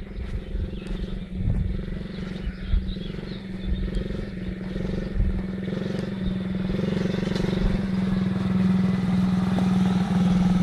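Children's mini quad bike's motor running at a steady pitch, getting gradually louder as it drives up close. Low wind rumble on the microphone in the first few seconds.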